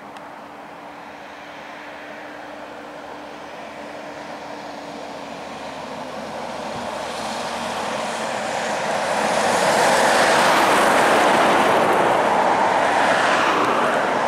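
MAN tanker truck approaching and passing close by: its engine and tyre noise grow steadily louder and are loudest about ten seconds in as it goes past.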